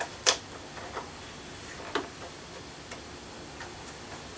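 Small sharp clicks from hands handling model railway equipment at the layout: a loud click just after the start, a fainter one about a second in and another about two seconds in.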